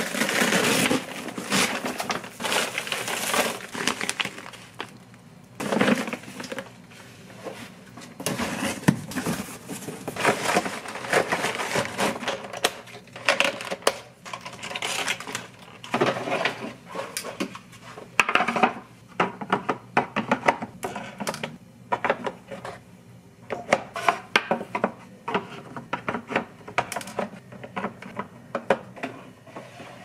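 Groceries being unpacked and put away: a fabric insulated delivery bag and its packaging rustling, then a run of light knocks and clinks as items and eggs are set down and placed into a refrigerator.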